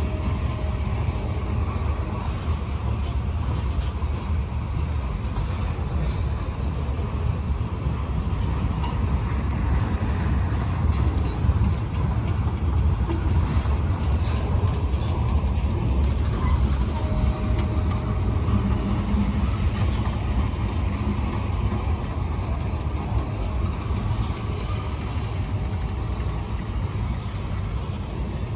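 Freight train cars rolling past close by: a steady low rumble of steel wheels on the rails.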